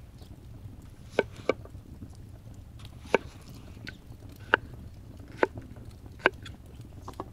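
Knife chopping a peeled potato into cubes on a wooden cutting board: about seven sharp knocks of the blade striking the wood, spaced irregularly about a second apart.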